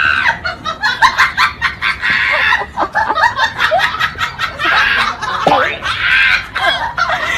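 A person laughing hard in quick, high-pitched bursts.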